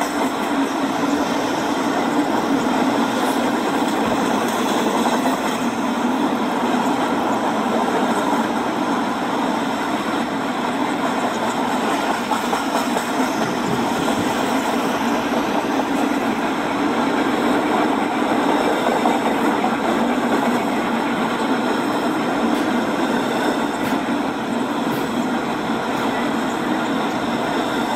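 Model trains running on a layout: a steady rolling hum of wheels and motors that holds even throughout.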